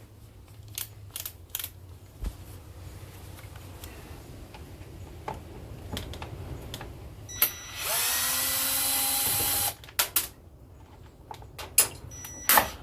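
Cordless drill-driver running for about two seconds, spinning up as it backs out a self-tapping screw from a plastic battery case. Scattered clicks and knocks of handling come before and after it.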